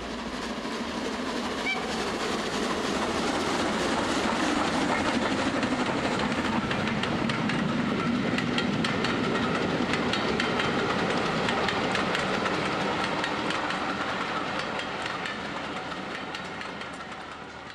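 A train passing, its wheels clattering over the rail joints; it grows louder over the first few seconds and fades away near the end.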